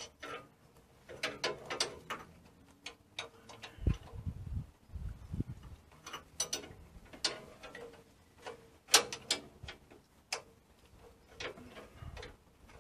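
Hand socket ratchet clicking in short, irregular runs as the nuts on the bolts holding a coil spring's bottom plate are undone, with a couple of dull knocks about four and five seconds in.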